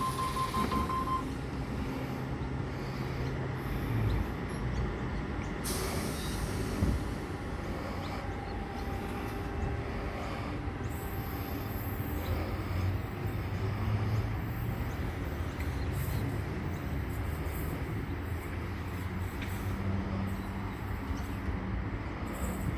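Suburban electric train moving at a station platform: a steady low rumble with faint humming tones.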